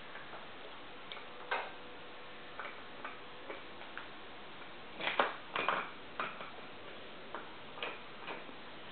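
Irregular light ticks and taps, a few a second and unevenly spaced, over a steady hiss, with a louder cluster of clicks about five seconds in.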